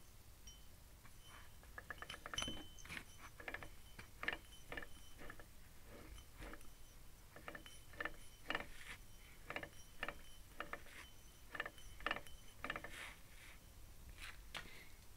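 Lexus IS300 Torsen limited-slip differential (M98, 3.9 gearing), out of the car and turned by hand, its left axle side giving irregular metallic clicks, some in quick runs. The owner is unsure whether the clicking is normal or a sign of damaged gear teeth or splines.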